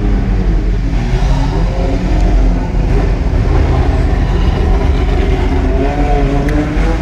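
Loud low rumble of several large-displacement engines at low revs: historic race cars passing close by and the supercar the sound is heard from. The engine pitch wavers up and down as throttles are blipped, harsh and distorted on a small phone microphone.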